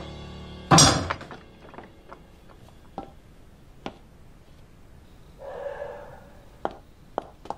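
A door shuts with a loud thud just under a second in, followed by scattered light knocks and clicks, a brief rough sound later on, and a few sharp clicks near the end.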